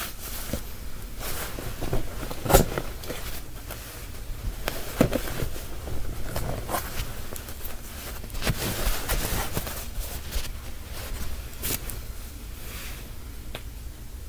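Scattered knocks and rustling, the sharpest knock about two and a half seconds in, over a low steady hum.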